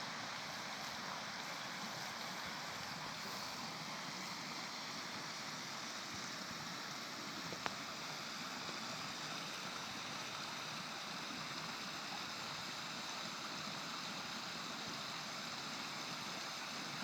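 Flowing water running with a steady, even rush. A single brief click stands out about halfway through.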